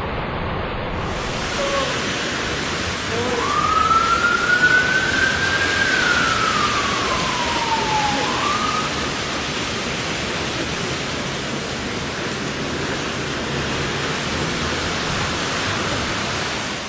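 Heavy rain hissing steadily on a wet street. Between about three and nine seconds in, a single long tone rises, falls slowly and turns up again at the end.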